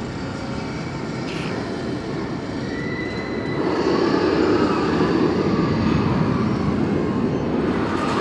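The Smiler, a Gerstlauer steel roller coaster: a train running through its inversions, a rumble of wheels on steel track. It grows louder about three and a half seconds in as the train passes closer.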